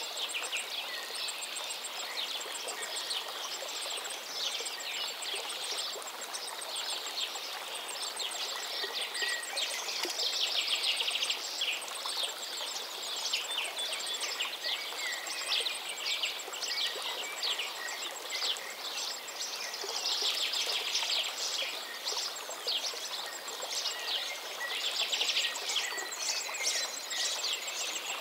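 Many birds chirping and trilling over a steady rush of running water, with a faint, high, rapid ticking throughout.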